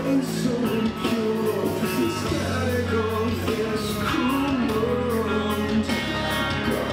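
Rock and roll song with a sung vocal line over bass and guitar, playing steadily throughout.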